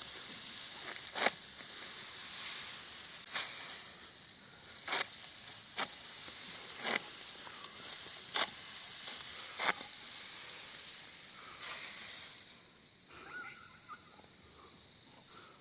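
A steady, high-pitched insect chorus drones over a rice paddy. Short, crisp rustling snaps come roughly once every second or so and stop about three-quarters of the way through.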